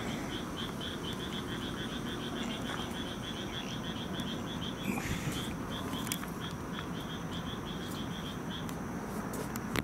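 An animal calling in a fast, even run of short high-pitched pulses, about four or five a second, that stops shortly before the end. Under it are a steady high hum and a low background din.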